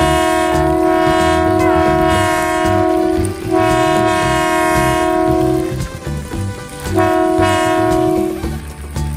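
Electronic train-horn sound from a battery-powered toy train, three long steady blasts, the first the longest and the last the shortest, over a low uneven rumble.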